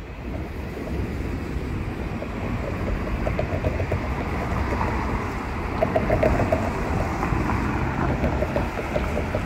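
City street ambience heard while walking: a steady low rumble of traffic mixed with wind on the microphone, with faint short tones now and then.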